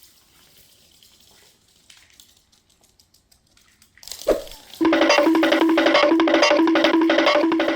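Faint clicks for about four seconds, then a sudden short comedy sound effect with a sliding pitch, then a bouncy looping comedy tune of short repeated plucked and percussive notes that starts about five seconds in.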